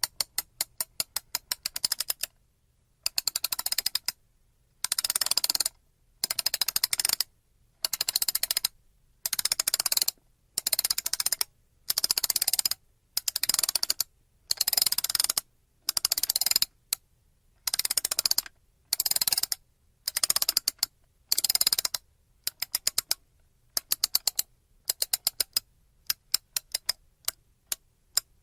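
Wind-up mechanical clock: rapid ticking of its escapement, then a long run of winding strokes, each a second-long burst of ratchet clicking from the key turning the mainspring. Rapid ticking starts again near the end.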